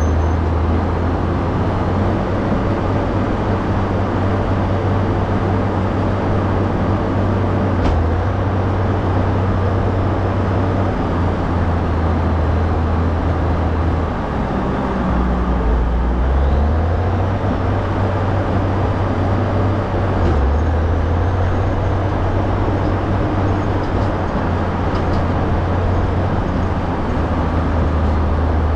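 Caterpillar motor grader's diesel engine running steadily. Its note dips briefly about halfway through and again a few seconds later, then holds steady.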